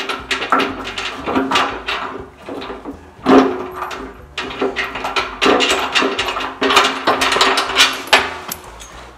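Irregular metal knocks and clinks as steel hydraulic fittings and hose couplers are handled and fitted by hand on a loader-valve bracket. The loudest knock comes about three seconds in, and the sound thins out near the end.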